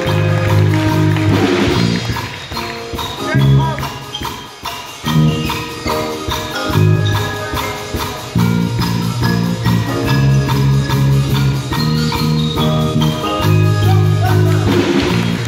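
Student jazz big band playing: a saxophone section and brass over a rhythm section, with dense held chords and moving lines.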